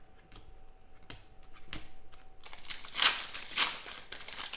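Foil trading-card pack wrapper crinkling and tearing as it is opened by hand. The rustle starts about halfway through, after a few light clicks of cards being handled.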